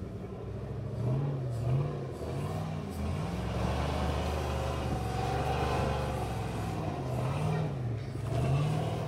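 Rock buggy's engine revving under load as it climbs out of an obstacle hole: the revs rise and fall in short blips, are held high for several seconds in the middle, then blip again near the end.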